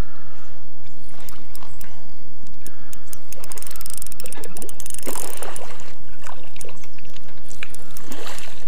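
Hooked largemouth bass thrashing and splashing at the water's surface close to shore as it is played in on light line, loudest about four to five seconds in, over a steady low rumble.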